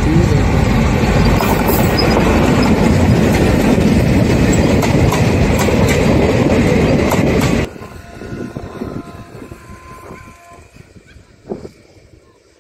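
WDM-3A diesel locomotive and its passenger coaches passing at speed close by, a loud rush of engine and wheel noise with the coach wheels clattering over the rail joints. The sound cuts off abruptly a little past halfway, leaving a quiet outdoor background with one short knock near the end.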